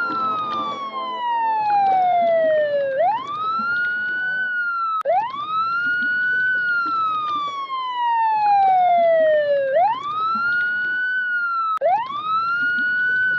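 Synthesizer tone sweeping like a siren: a quick rise in pitch, then a slow, steady fall, repeating about every three and a half seconds over a rough low rumble.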